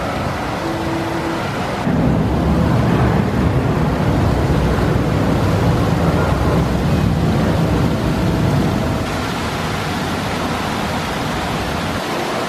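Steady rushing noise, which gets louder and deeper from about two seconds in until about nine seconds in.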